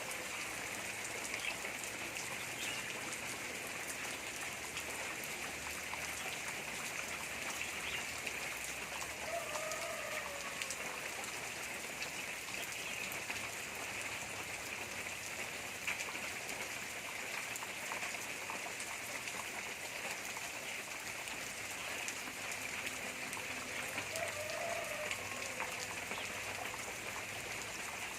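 Steady rain falling, with the patter of many drops on surfaces. A short call that rises and falls sounds twice through it.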